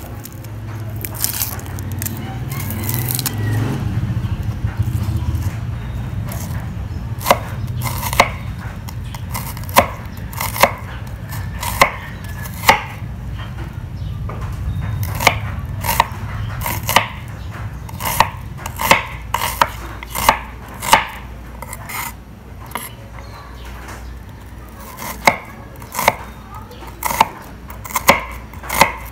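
Knife chopping a red onion on a bamboo cutting board: sharp, irregular knocks of the blade hitting the board, starting about seven seconds in, over a steady low hum.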